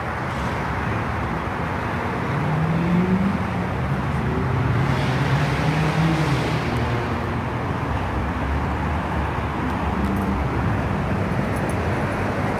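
Car engines running over a steady hum of road traffic. A low engine note rises about two seconds in, and the sound swells for a couple of seconds around the middle.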